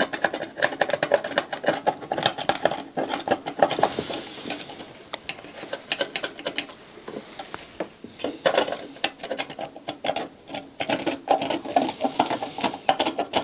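Rapid, irregular scratching and clicking of a hand tool scraping crusty, conductive residue, the remains of leaked capacitor electrolyte, off a circuit board.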